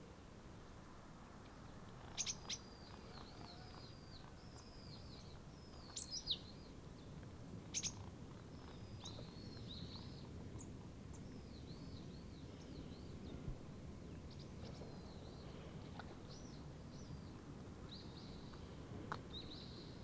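Small birds chirping and calling, faint, with a few louder short calls among the steady run of chirps.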